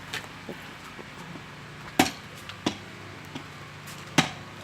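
Hammer blows on metal at a blacksmith's anvil: about half a dozen strikes at uneven spacing, the loudest about two seconds in and near the end, each with a brief metallic ring.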